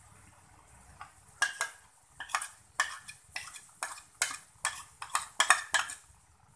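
Metal spoon scraping and clinking against a bowl and an aluminium pot, about a dozen quick strokes at roughly two a second starting about a second in, as leftover curry paste is scraped out of the bowl into the pot.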